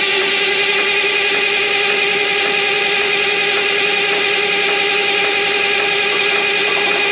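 Caterpillar C18 industrial generator-set diesel engine, a turbocharged inline-six, running at a steady speed moments after start-up: a constant loud drone with a strong steady tone.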